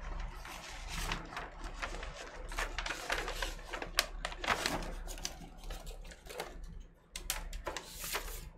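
Paper inner sleeve of a vinyl LP rustling and crinkling as it is handled and the record is slid out of it, with many irregular crackles and taps.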